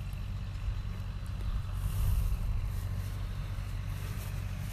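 Farm tractor engine running steadily as a low rumble, swelling slightly about two seconds in.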